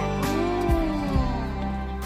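Background music: sustained low notes under melodic lines that glide up and down.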